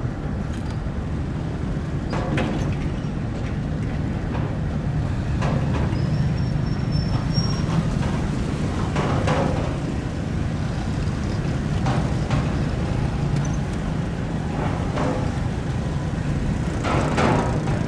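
A large engine running with a steady low rumble, with scattered knocks and clatter every few seconds.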